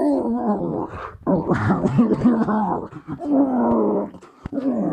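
A voice actor performing General Grievous's coughing fit: long, pitched, voiced coughing and groaning in about three stretches, with short breaks between them.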